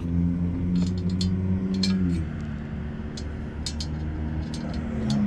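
Small motorized-bicycle engine idling, its exhaust loose at the engine, with scattered light clicks and rattles over it. The idle dips slightly about two seconds in.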